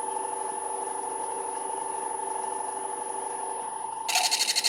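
Wood lathe running with a steady motor whine. About four seconds in, a tool is pressed against the spinning damson bowl blank to mark the recess, giving a rapid pulsing scratch.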